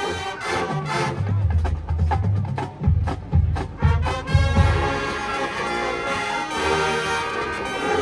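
Marching band playing: brass chords over drums, with a run of heavy bass drum hits about every half second through the middle, then held brass chords.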